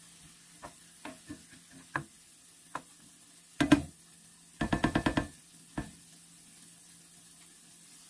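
A plastic spoon stirring through a thin sauce in a nonstick skillet, knocking and scraping against the pan now and then. A louder clatter comes about three and a half seconds in, then a quick run of about eight taps. The stirring stops about six seconds in.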